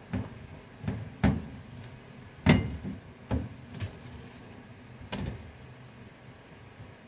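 Dull, irregular knocks and thumps of bread dough being rolled, pressed and patted by hand on a wooden cutting board, with the board knocking on the counter. There are about seven of them, and the loudest comes about two and a half seconds in.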